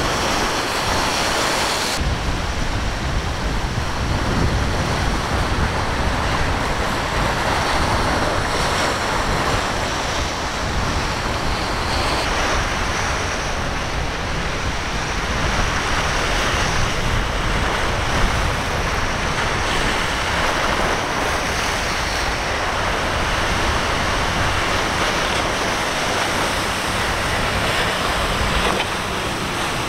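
Steady rush of rough surf and breaking waves, with wind buffeting the microphone.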